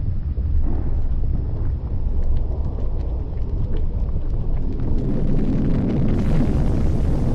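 Volcanic eruption: a steady deep rumble of the erupting vent with scattered sharp crackles and pops, turning fuller and hissier about five to six seconds in.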